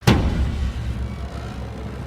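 Thunderclap: a sudden sharp crack right at the start, followed by a low rumble that slowly fades.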